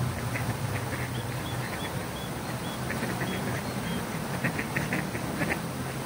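Ducks quacking in short bursts over the steady rush of a fountain's running water, the quacking busiest near the end.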